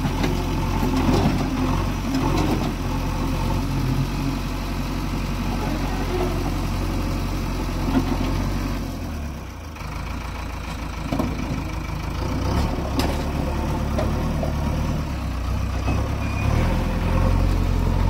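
JCB 3DX backhoe loader's diesel engine running steadily. Its sound dips briefly about halfway through, and a few short knocks sound over it.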